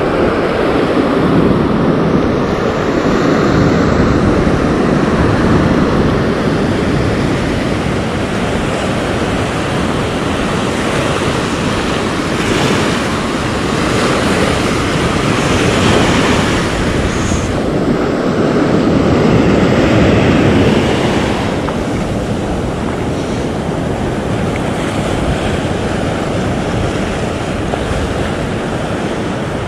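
Ocean surf breaking and washing up a sand beach, with wind buffeting the microphone; the rushing noise swells twice as bigger waves come in, near the start and past the middle.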